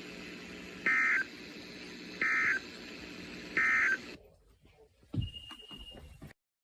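NOAA Weather Radio sending the three SAME end-of-message data bursts that close its weekly test: short, shrill digital warbles about a second and a half apart, over the receiver's steady hiss. A little after four seconds the hiss cuts out, and a thump and faint rattling follow before the sound stops.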